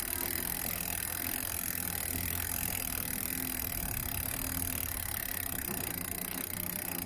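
Mountain-coaster sled running along its track: a steady mechanical drone with a few constant low tones and a continuous rattle.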